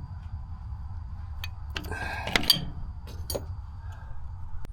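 A few sharp metallic clicks and a short scrape of a wrench working the loose fuel-inlet nut on a Massey Ferguson 240 tractor, over a low steady rumble.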